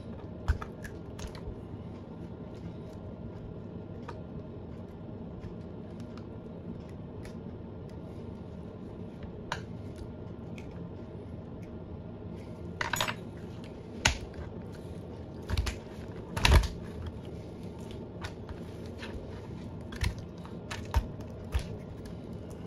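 Scattered clicks, knocks and a few louder thuds from a tilapia being cut and cleaned by hand, over a steady low hum.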